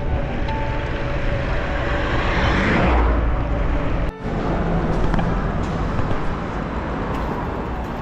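Wind rushing over the microphone of a moving bicycle on a road, with road traffic; a vehicle swells past about two to three seconds in. The sound drops out briefly about four seconds in.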